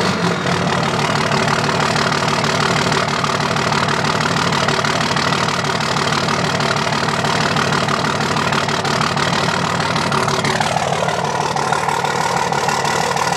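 2005 Dodge Ram 2500's 5.9-litre inline-six Cummins diesel idling steadily with one injector not firing. About ten seconds in, a high whine drops in pitch.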